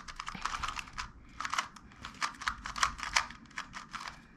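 A magnetic Dayan Tengyun M 2x2 speed cube being turned quickly by hand, its plastic layers giving a rapid run of sharp clicks and rattles in irregular bursts.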